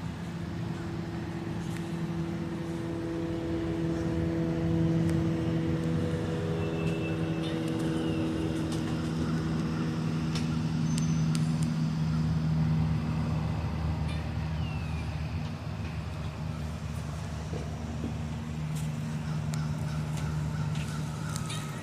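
A steady low motor hum, like an engine running, with a few faint, short, high chirps scattered over it.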